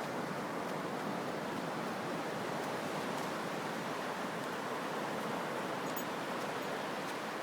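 Ocean surf, a steady even rush of breaking waves.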